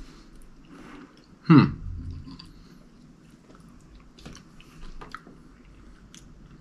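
A person chewing a mouthful of chicken and noodles with fried egg, with faint mouth clicks throughout. About a second and a half in comes one short, loud vocal sound that falls in pitch.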